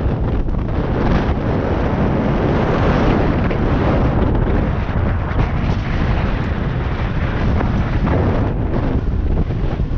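Wind buffeting a GoPro's microphone during a fast mountain-bike descent, mixed with the steady rumble of tyres on the dirt trail and scattered knocks and rattles as the bike hits bumps.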